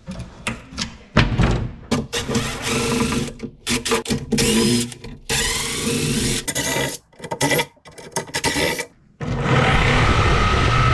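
Short, broken bursts of power-tool and workshop noise, including cordless impact driver runs on cabinet panels. About nine seconds in, a jigsaw starts and runs steadily, cutting through a cabinet panel.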